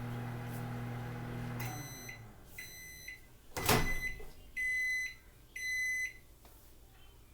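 Microwave oven humming steadily, then cutting off just under two seconds in as the heating cycle ends. Several high end-of-cycle beeps follow about a second apart, with a loud clunk between them.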